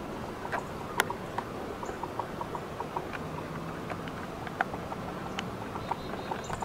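Young whitetail buck stepping and feeding in dry grass and leaves: a run of light, irregular ticks and crackles, with a sharper snap about a second in and another about two-thirds through.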